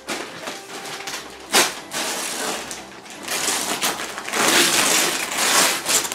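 Wrapping paper being torn off a present by hand, with repeated ripping and crumpling. There is one sharp rip about a second and a half in, and the tearing is loudest and thickest in the second half.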